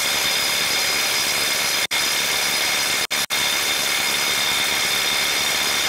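Ryobi HP 18-volt 3/8-inch impact wrench hammering steadily on a nut tightened to 250 without loosening it: the wrench lacks the power to break it free. It stops for an instant about two seconds in and twice around three seconds.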